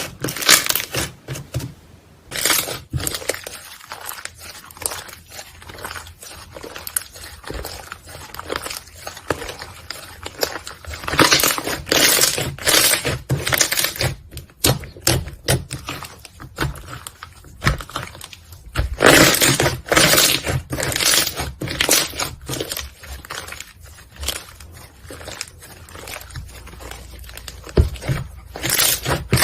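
Slime being squeezed, pressed and stretched by hand, giving dense irregular crackling and popping clicks that come in louder bursts several times.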